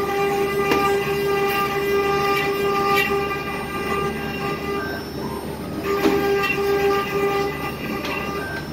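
CNC router spindle carving into meranti wood: a steady high-pitched whine over the noise of the cut. The whine fades for about a second past the middle and again near the end, then returns.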